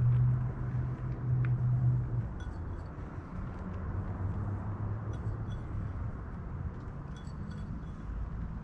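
Low steady background hum, like a distant engine or traffic, loudest for the first two seconds and then fading down. A few faint light clinks sound over it.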